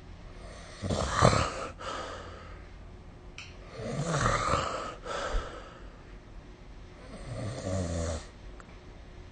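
A sleeping person snoring: three snores about three seconds apart, the first the loudest.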